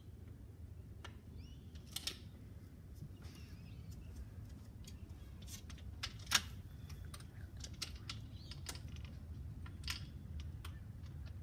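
Scattered faint clicks and knocks over a low steady hum, with one sharper click about six seconds in: handling and movement noise as a handheld phone is carried along.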